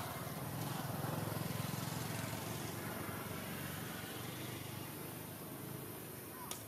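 A low engine drone that swells about a second in and then slowly fades, with a single sharp click near the end.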